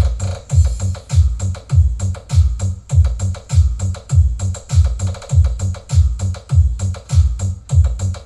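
Bass-heavy electronic dance music played through a Joson Stage 15 speaker driven by a Crown BF-1268 amplifier in a sound check, with a strong kick drum about twice a second and sharp hi-hat ticks.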